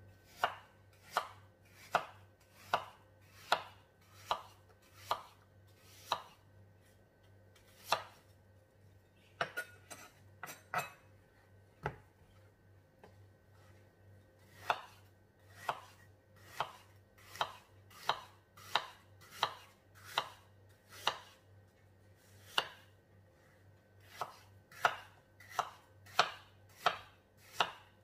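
A kitchen knife dicing peeled apples on a wooden cutting board: sharp knocks of the blade hitting the board about once a second, with a short break partway through.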